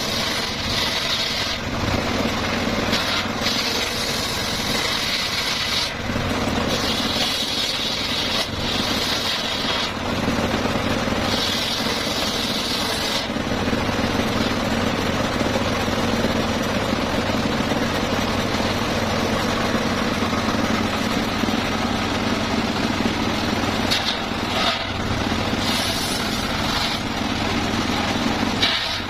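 Circular saw running steadily, with a higher-pitched cutting sound that rises and falls in stretches of a second or two as the blade works through mahogany wood, mostly in the first half and again near the end.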